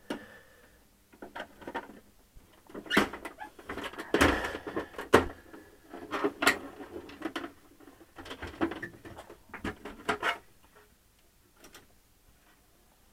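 Clunks, knocks and clatter of a bench oscilloscope being moved into place and its cables connected, coming irregularly for about ten seconds and then stopping.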